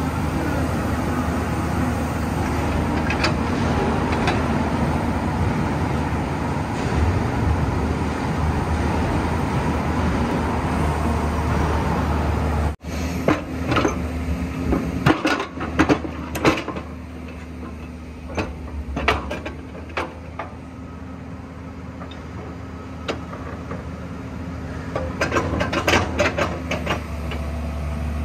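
Heavy construction machinery's diesel engine running steadily. Partway through, the sound cuts to a quieter engine hum with bursts of sharp metallic clanks and knocks, and more of them near the end.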